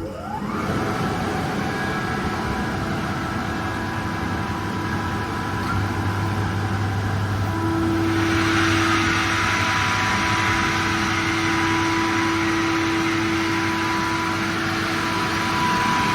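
Kaeser SK25T rotary screw air compressor starting up: a short rising whine as the motor spins up, then steady running. About eight seconds in it grows louder, with a rushing hiss added, as it builds pressure.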